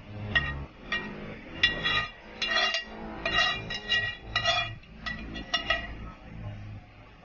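Metal spoon scraping and clinking against a frying pan while spice paste is scooped out, about a dozen ringing clinks at an uneven pace.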